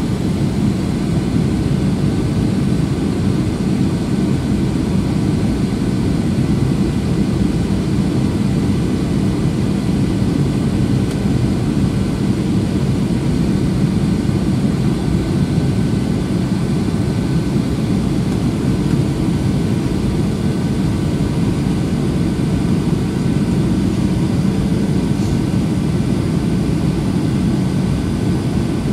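Steady cabin noise of a Boeing 737-800 in flight, heard from a window seat beside its CFM56-7B turbofan: a low rumble of engine and airflow with a faint steady tone over it.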